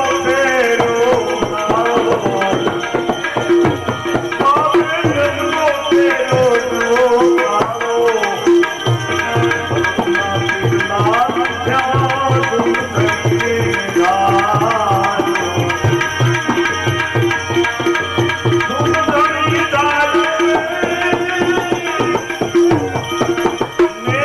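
Instrumental interlude of a devotional bhajan: a melody instrument plays wavering, gliding phrases over a steady rhythm of hand-drum strokes.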